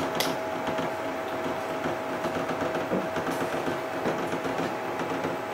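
Chauvet Q-Spot 260 LED moving-head light's pan and tilt stepper motors running as the head homes after power-on: a steady whine over a fine mechanical rattle, with a sharp click right at the start.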